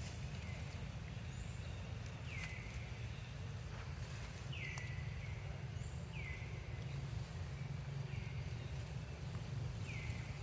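An animal's short, high, falling call, repeated about every two seconds, over a steady low rumble.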